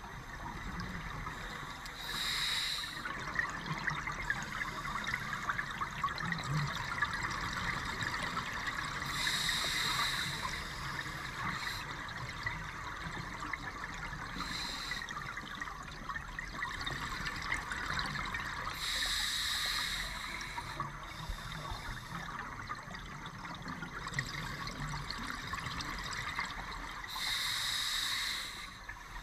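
Scuba diver's regulator underwater, each exhalation venting a rush of bubbles about every eight or nine seconds, four times in all, over a steady crackling underwater hiss.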